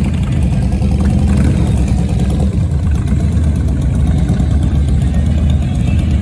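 Motorcycle engines running steadily with a deep, low-pitched sound.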